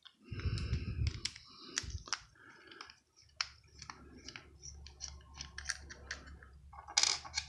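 Small screwdriver turning a screw in a metal and plastic spinning reel's body, with many small sharp clicks as the tip works the screw and the reel is handled.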